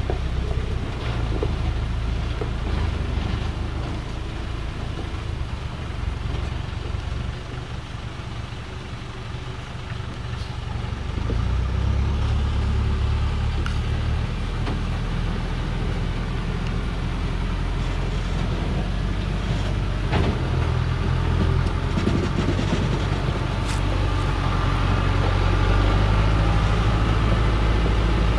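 Dongfeng truck's diesel engine running under a heavy log load as it crawls through a rocky stream. It fades for a few seconds, then grows louder again about ten seconds in.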